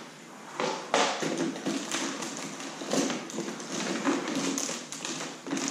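Rummaging through a storage box: irregular knocks, taps and clatter with rustling as items are shifted about.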